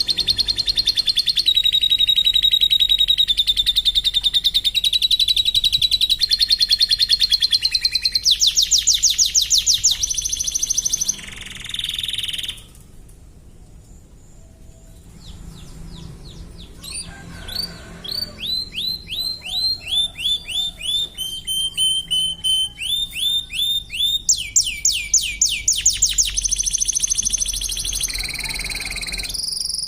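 Domestic canary singing: long, fast trills and rolls, a short break about halfway through, then a run of quick down-sweeping notes at about two a second, followed by more trills.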